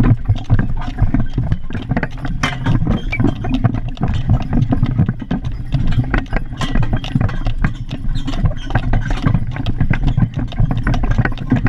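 Horse-drawn wagon rolling along a paved street: a steady low rumble with a constant scatter of irregular rattles and knocks.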